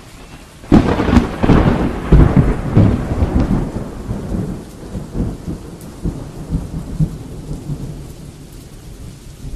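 Thunder sound effect for a logo: a loud thunderclap about a second in, rolling into a rumble that fades away over steady rain.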